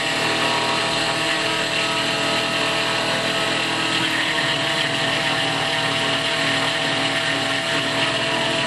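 X2 mini mill running at about 2,500 RPM while a 3/4-inch high-speed steel end mill takes a 0.025-inch-deep, half-inch-wide cut in mild steel. A steady machining noise with several held tones and no breaks, chips spraying from the cut.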